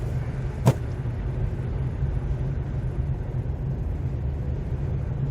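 Car driving, heard from inside the cabin: a steady low rumble of engine and road noise, with a single sharp click under a second in.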